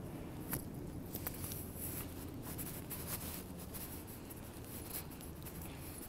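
Quiet outdoor background with a steady low rumble and scattered soft clicks and rustles from someone walking with a handheld camera.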